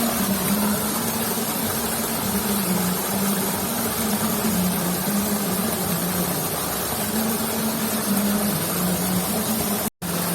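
A small motor running steadily, a low hum whose pitch wavers slightly, over a steady hiss; the sound cuts out for a moment near the end.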